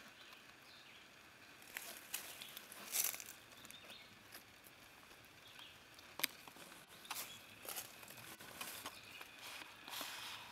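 Hands working cordage on a taut ridgeline: scattered short rustles, scrapes and light clicks as a knot is tied and snugged tight.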